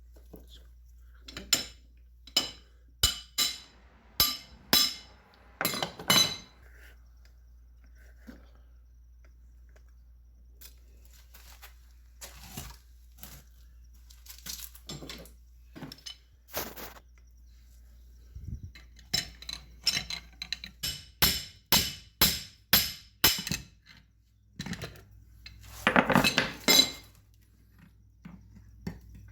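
Sharp metallic clinks and taps of tools against the metal parts of a submersible motor being taken apart, in clusters of quick strikes. Near the end comes a longer, louder clatter.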